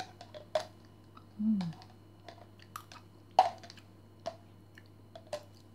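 A metal spoon clicking and scraping against the inside of a plastic yogurt bottle as yogurt is scooped out: a string of sharp irregular taps, the loudest about three and a half seconds in. A brief low hum of voice comes about one and a half seconds in.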